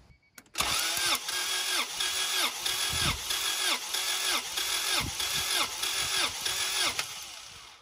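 Starter motor cranking a Honda H22 DOHC four-cylinder engine during a compression test on cylinder four, with the engine turning over without firing. The cranking rises and falls about twice a second, begins about half a second in and winds down near the end.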